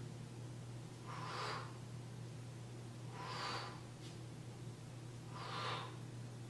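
A woman breathing hard, three breaths about two seconds apart, each timed to the effort of a dumbbell tricep kickback. A steady low hum runs underneath.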